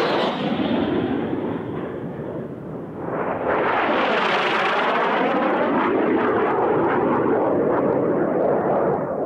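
Racing jet aircraft flying low past at speed, a continuous jet engine roar. The noise eases slightly, then a second jet passes overhead about three seconds in, louder, with the sweeping rise and fall of a flyby.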